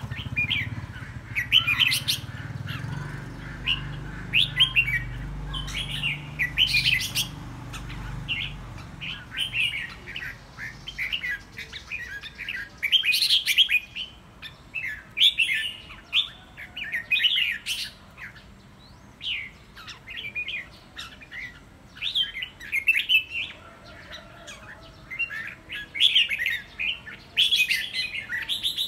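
Red-whiskered bulbul, a seasoned decoy bird in its cage, singing short quick chirpy phrases again and again, with brief pauses between them. A low rumble fades out over the first several seconds.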